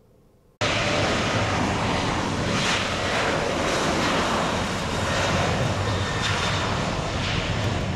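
Jet engine noise from a Boeing 737 airliner on the runway: a steady, loud rush with a faint high whine. It cuts in abruptly about half a second in.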